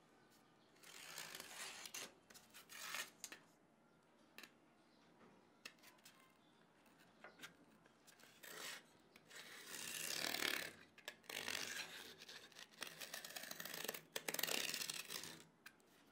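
Pen and steel divider point scratching across corrugated cardboard: a pen ruled along a steel ruler, then the divider scribing a circle. Several scratchy strokes of a second or two each, the loudest about ten seconds in and another near the end, with light taps of the tools between.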